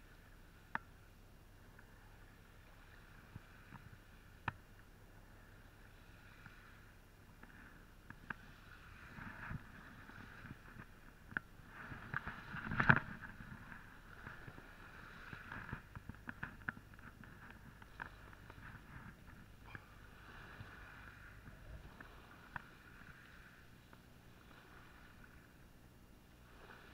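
Faint steady hiss of rain and sea, with scattered sharp ticks of raindrops striking the camera's housing. About halfway through comes a louder burst of rubbing and knocking as the camera is jostled while the angler handles the rod and reel, followed by a few more knocks.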